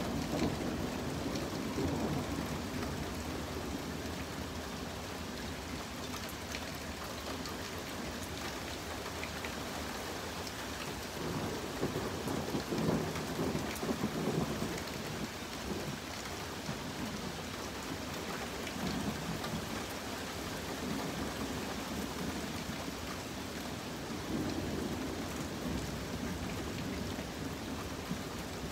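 Steady rain falling, with low thunder rolling several times. The longest and loudest roll comes about halfway through.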